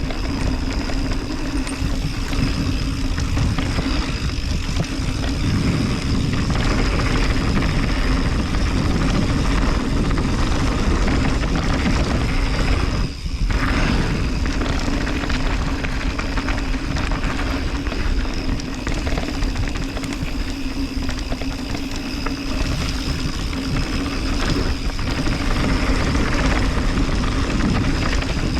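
Steady wind rush and trail rumble from a mountain bike descending a dirt downhill trail, with a brief drop in level about halfway through.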